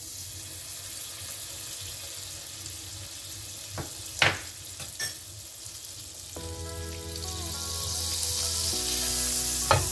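Butter sizzling as it melts in a hot ridged grill pan, with a few sharp clicks about four seconds in.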